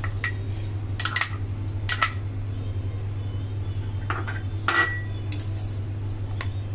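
Serving spoon clinking and tapping against glass bowls as diced mango is spooned onto a dessert: a scattered string of light clinks, the loudest about five seconds in with a short ring. A steady low hum runs underneath.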